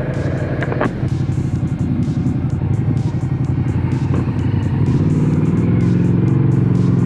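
Ducati Multistrada V2 Pikes Peak's 937 cc twin-cylinder engine running under way, recorded on board with wind noise. About five seconds in, the revs and the level climb as the bike accelerates.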